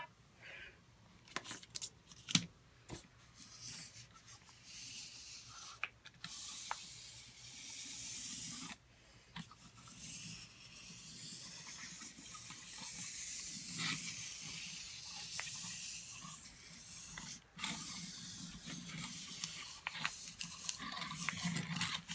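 A small paper-wrapped toy car pushed by hand across a wooden desktop and taped plastic: faint rolling and rubbing that comes and goes, with scattered small clicks.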